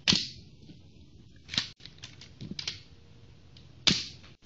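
Spring-powered Lego slide-action pistol being fired and cycled: sharp plastic snaps, loudest at the start and near four seconds in, another about a second and a half in, with lighter clicks of the mechanism around two and a half seconds.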